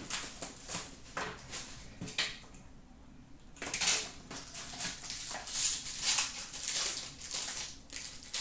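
Hands handling trading cards and cardboard card boxes on a glass counter: a string of short scrapes, taps and rustles, busier from about halfway through as a new box is picked up.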